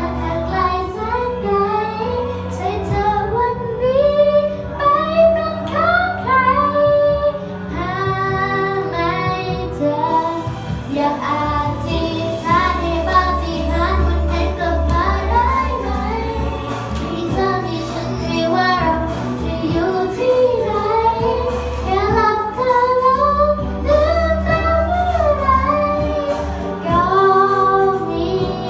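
A girl singing a Thai pop song over a backing track with a steady bass line.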